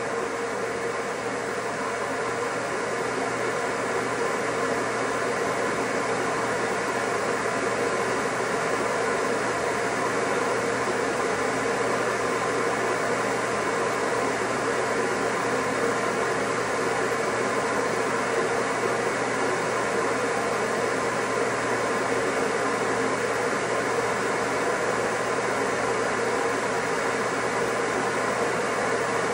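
Shower water running steadily, a continuous spray with no breaks.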